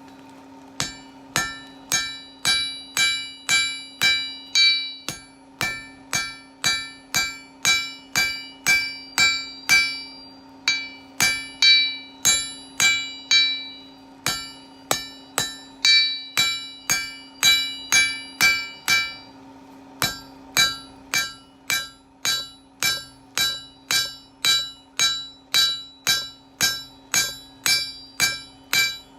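Blacksmith's hammer striking a steel bar on an anvil to square it up. The blows come at about two a second in runs of several seconds with short pauses, and each blow rings.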